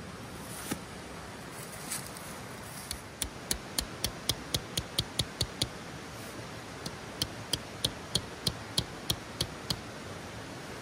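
A tent peg being driven into the ground with a small hammer: two runs of rapid, sharp taps, about three or four a second, with a short pause between. Dry leaves rustle briefly before the hammering starts.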